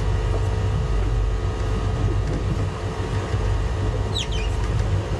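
Sport-fishing boat's inboard engine running with a steady low rumble, heard from aboard in the cockpit, with a brief high squeak about four seconds in.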